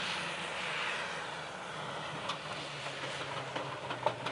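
2004 Jeep Wrangler Rubicon's 4.0-litre straight-six running at full throttle as it climbs a steep sand dune, heard from a distance as a steady low drone under a dense hiss. A few sharp clicks come near the end.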